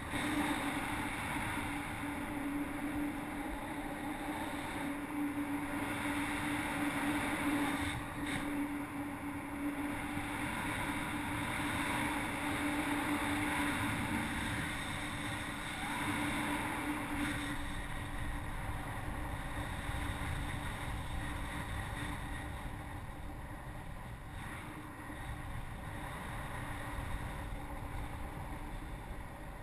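Steady rush of airflow over a paraglider pilot's harness-mounted camera microphone in flight, with a low steady hum through the first half that fades out about 17 seconds in.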